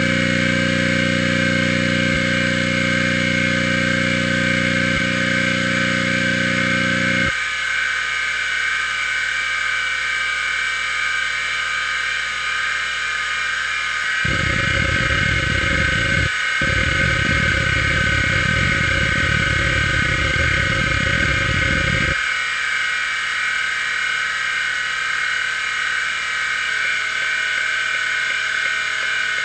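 Maxtor XT-8380S 5.25-inch full-height hard drive spinning with a steady high whine. For the first seven seconds its head actuator gives a steady, evenly pitched buzz. From about halfway through, for some eight seconds with a brief break, the heads seek rapidly in a denser, irregular buzz under a disk benchmark.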